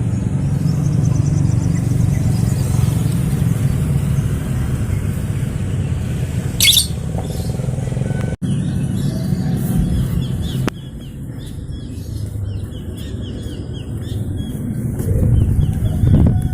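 Small birds chirping in quick repeated calls over a steady low rumble, with one loud, shrill call about seven seconds in. The sound drops out for a moment about eight seconds in.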